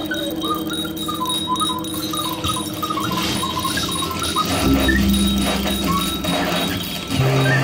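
Experimental improvised ensemble music: short, high chirping notes repeat over a steady drone, and a low sustained tone comes in about halfway through.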